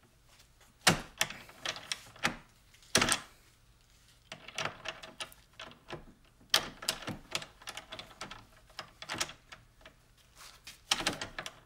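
Steel flare nut wrench clinking and clacking on a rounded-off grade 8 bolt head and a digital torque adapter as it is fitted and pulled. The sound is a scatter of sharp metal clicks in loose clusters. The head is so rounded that the wrench barely grabs.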